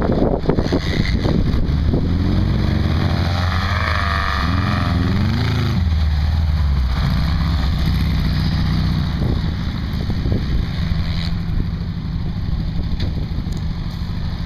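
Off-road buggy engines running, first the sandrail's as it climbs over dirt mounds, then the VW Baja Bug's as it drives around the dirt track. The revs rise and fall a few seconds in, then settle to a steady run.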